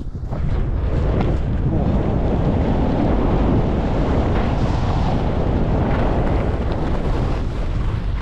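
Wind buffeting the microphone while skiing fast downhill, a loud steady rush heaviest in the low end, with skis hissing over packed, tracked snow. It picks up about half a second in as speed builds.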